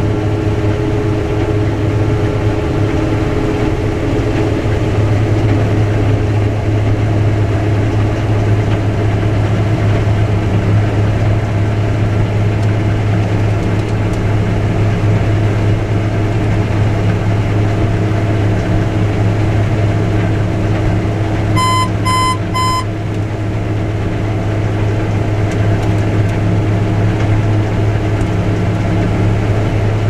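Combine harvester running steadily under load, a constant low drone heard from inside the cab. About two-thirds of the way through, three short electronic beeps sound in quick succession, about two a second.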